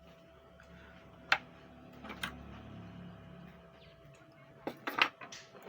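A few sharp clicks and taps of small tools and parts being handled on a workbench while preparing to solder: a single click about a second in, another near the middle, then a quick cluster of clicks near the end.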